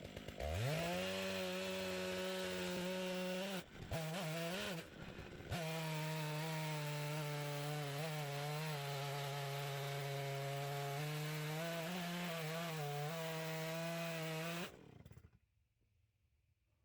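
Two-stroke Stihl chainsaw on an Alaskan chainsaw mill, revving up and running at a steady full throttle while ripping an oak log into slabs. About three and a half seconds in it drops off briefly and revs up again. It then holds steady until it winds down and stops about fifteen seconds in.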